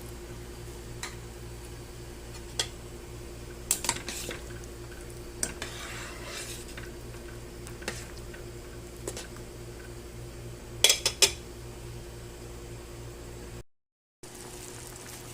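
Metal utensil clinking and knocking against a cooking pot as soup is stirred, in scattered single knocks with a quick cluster of sharper clinks a little before the end, over a steady low hum. The sound drops out briefly near the end.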